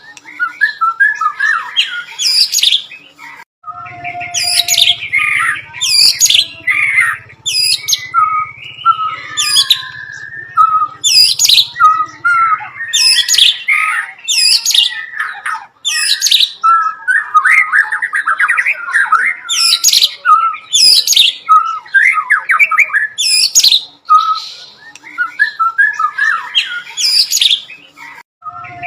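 White-rumped shama (murai batu) singing loudly and continuously, its song packed with mimicked bar-winged prinia (ciblek) calls: rapid sharp downward-sweeping notes and chatters. A low hum runs underneath for about ten seconds starting about four seconds in.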